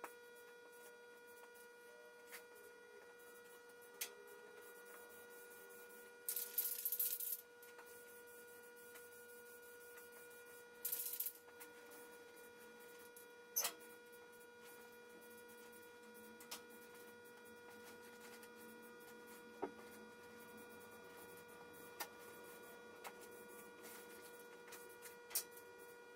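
Faint steady electrical hum, a single high tone with overtones, broken by a few sharp clicks and two short bursts of hiss.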